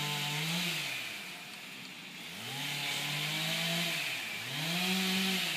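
Two-stroke chainsaw revving up and down over and over, as in cutting: its note climbs, holds at full throttle and drops away three times.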